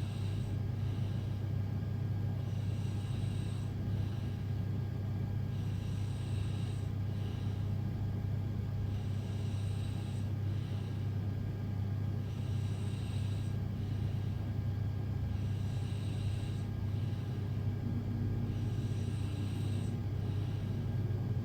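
A sleeping person's slow, regular breathing: a hissing breath about every three seconds, each in two parts, over a constant low rumble.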